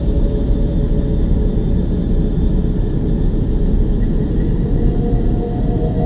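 Deep, steady rumbling drone with faint steady tones above it, presented as Earth's electromagnetic radio emissions converted into audible sound.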